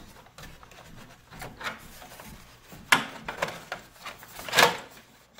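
Plastic motorcycle body panels knocking and rubbing against each other as a knee cover is worked into place by hand. There is a sharp click about three seconds in and a louder rub near the end.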